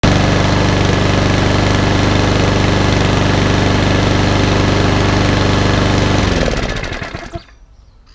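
Mountfield RSC100 single-cylinder overhead-valve petrol engine on a rotary lawnmower, running steadily at idle and fully warmed up. About six seconds in it slows, dropping in pitch, and stops within about a second.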